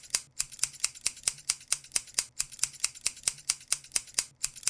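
Rapid, regular mechanical clicking, about five sharp clicks a second, in runs broken by brief pauses about every two seconds, over a faint low hum.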